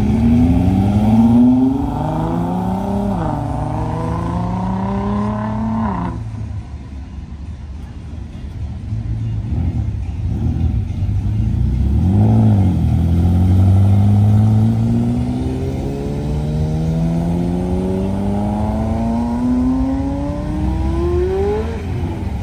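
Sports cars accelerating hard away one after another. First, a second-generation Ford GT's twin-turbo V6 revs up, drops at a gear change, rises again and cuts off about six seconds in. Around twelve seconds a Ferrari F40's engine is blipped, followed by one long, steady rising rev that drops near the end.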